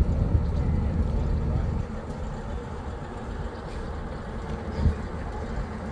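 Steady low rumble of a moving vehicle. It drops in level about two seconds in, and a single low thump comes near the end.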